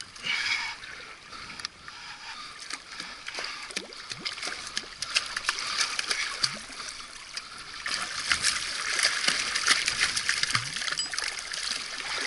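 Seawater splashing and washing against shoreline rocks, mixed with a hooked jack thrashing at the surface as it is brought in. The splashing gets louder and busier about two-thirds of the way through.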